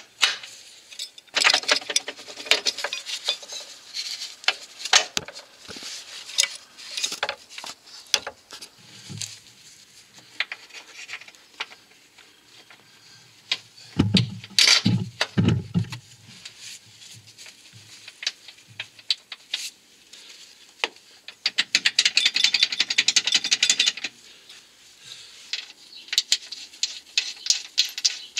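Hand ratchet clicking in bursts as the lower control arm's mounting bolts are run into the subframe, without being torqued, with a long fast run of clicks near the end. Scattered metal tool clinks and a few dull knocks about halfway.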